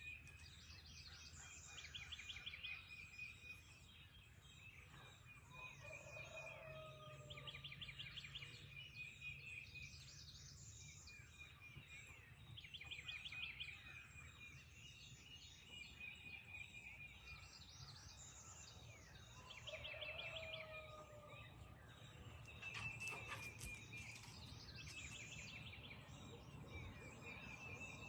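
Faint dawn chorus of several songbirds: one repeats a short, rapid trill every few seconds, with other chirps and whistled notes around it, over a steady low hum.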